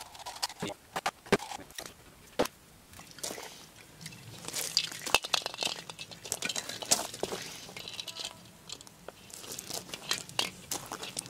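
Close handling of Christmas ornaments and their clear plastic packaging: crinkling and rustling of the plastic shells, with many small scattered clicks and ticks as ornaments are picked out and hung. The rustling is strongest about four to five seconds in and again around seven seconds.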